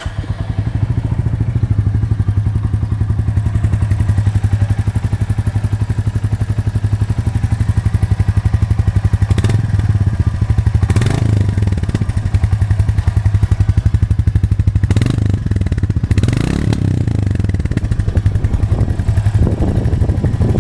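Royal Enfield Goan Classic 350's single-cylinder engine through its stock slash-cut exhaust, starting up and idling with a steady, even thump. It is given a couple of short throttle blips midway and a longer rev up and back down about three-quarters through.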